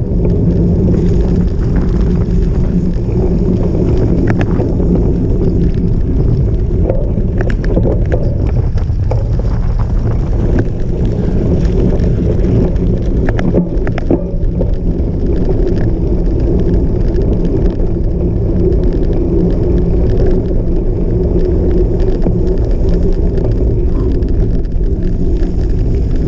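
Cyclocross bike ridden fast off-road, its tyres and frame rattling over rough ground, with a steady rush of wind on the microphone. Sharp knocks from bumps come here and there, a few of them about a third and half way through.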